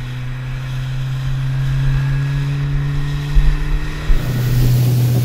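Outboard motor of a small Boston Whaler running steadily at cruising speed under way through swells, with two low thumps of the hull about three and a half and four seconds in. Near the end a rush of wind and water noise swells up over the engine.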